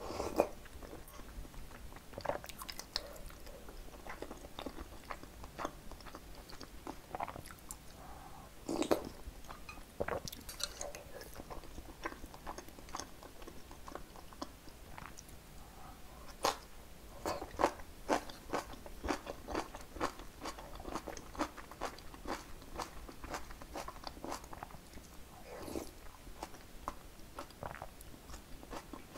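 Close-miked chewing and biting of food, with a run of crisp crunches about midway from fresh napa cabbage kimchi (geotjeori) being chewed.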